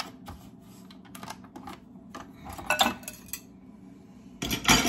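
Metal beaters being unhooked from a stand mixer and handled: scattered clicks and clinks, a few sharper knocks a little under three seconds in, and a louder clatter near the end.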